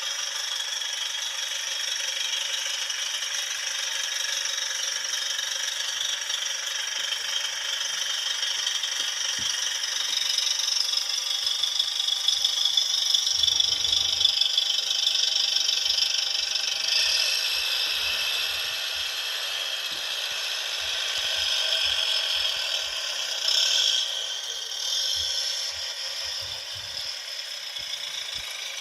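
Recorded engine sound effect of a Citroën Type H van, played through the small speaker of a 1/8-scale model, thin and rattly with no bass. It swells in loudness about halfway through and has a short louder rise near the end.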